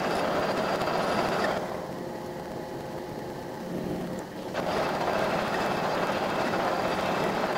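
Metal lathe running and taking a cut on a small steel shaft, a steady mechanical rush with a faint hum. The sound drops quieter for about three seconds, from about a second and a half in, then picks up again.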